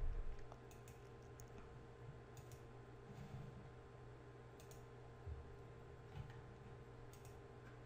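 Faint computer mouse clicks, a few scattered single clicks, over a low steady hum.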